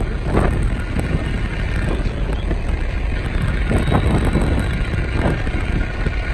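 Steady road and engine rumble heard from inside a moving car, with wind noise over it.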